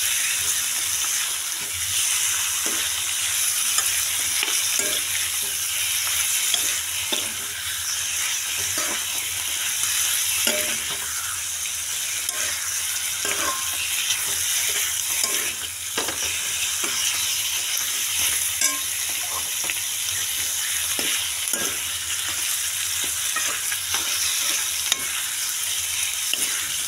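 Chicken pieces and sliced onions sizzling in hot oil in a pan, with a steady hiss. They are being stirred, with irregular scrapes and knocks against the pan every second or so.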